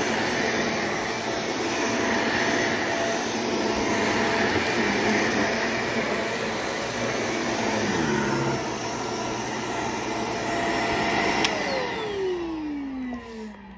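Stick vacuum cleaner running on carpet with a steady whooshing hum. About eleven seconds in there is a click, and the motor's whine falls steadily in pitch as it spins down.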